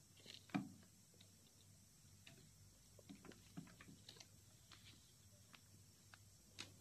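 Near silence with faint scattered clicks and light knocks from handling the phone and the doll, the strongest about half a second in and another near the end.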